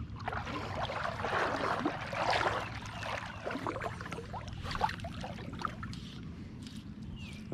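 Water sloshing and splashing in irregular bursts, busiest in the first three seconds and then easing off, over a steady low river rumble.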